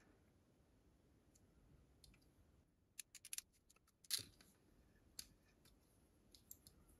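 Wirefy ratcheting crimping tool clicking as it is squeezed onto a wire's insulated connector: a quick run of small clicks about three seconds in, then a louder click a second later and another near five seconds. Near silence before the clicks.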